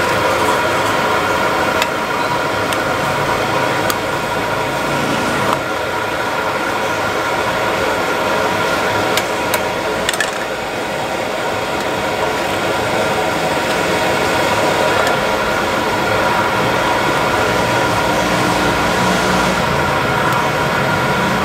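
Steady rushing noise of a gas burner flame under a small pan of boiling pork sukiyaki, with a few light clinks of a metal ladle against the pan.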